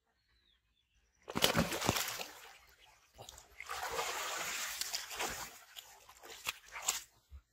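Water splashing and sloshing, starting suddenly about a second in, as a fish is pulled out of shallow water on a line, then the fish flapping on wet mud, with a few sharp slaps near the end.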